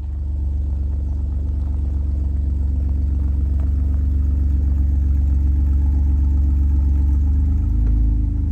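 A motor vehicle's engine running at a steady speed, close by and loud, with a slight shift in pitch near the end.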